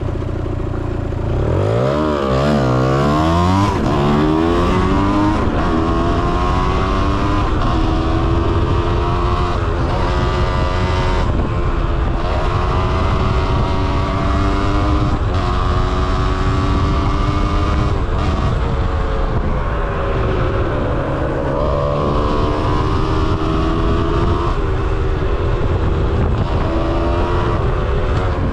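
Kawasaki KX 125 two-stroke single-cylinder engine pulling hard under riding, its pitch shooting up about two seconds in, then holding high revs that rise and fall with the throttle, easing off around twenty seconds in before climbing again. Constant low wind rumble on the bike-mounted microphone underneath.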